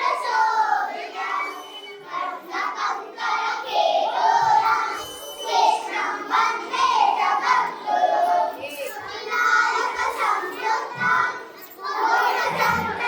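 Many children's voices at once: a crowd of schoolchildren chattering and calling out together.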